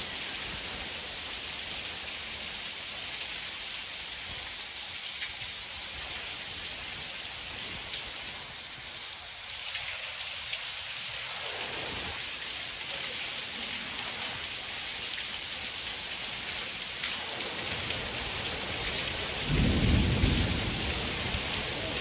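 Steady heavy rain falling, with a low roll of thunder near the end.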